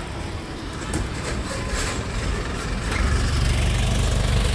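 Road traffic with a bus engine running close by. The low engine rumble grows louder about three seconds in.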